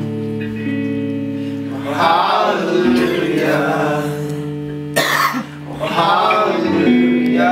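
Electric guitar chords strummed and left ringing under a man singing a slow gospel chorus, with a short cough about five seconds in.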